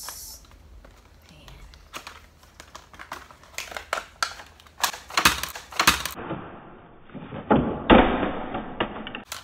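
A small cardboard retail box for a wireless mouse being handled and opened, with a quick run of taps and clicks, then loud crinkling and rustling of its plastic packaging as the mouse is pulled out in the last few seconds.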